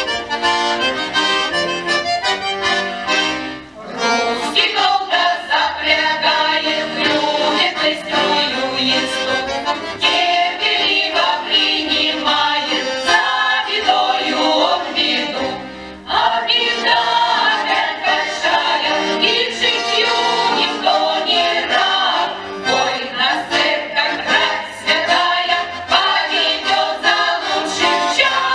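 Women's folk choir singing a Russian song to button accordion (bayan) accompaniment. The music drops away briefly twice, about four seconds in and about halfway.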